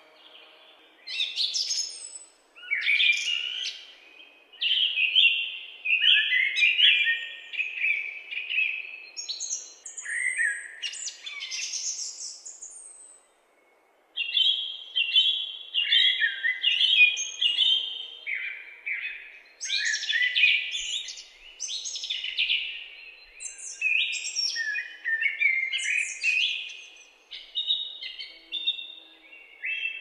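Songbirds singing: rapid, varied high-pitched phrases and trills, one after another, with a brief break about halfway through.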